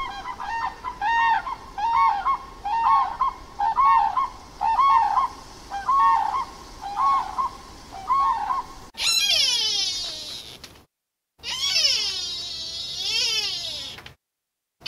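Animal calls: a run of short pitched calls repeated about twice a second for nine seconds. After a cut come two long calls, the first falling in pitch and the second wavering up and down.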